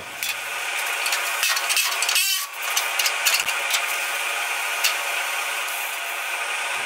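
A metalworking power tool running on car-body sheet metal: a steady hiss with many sharp clicks through it, dipping briefly a little over two seconds in.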